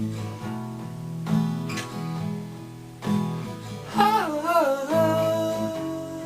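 Music: acoustic guitar strumming chords between sung lines. About four seconds in, a wavering high melodic note enters and settles into a long held tone.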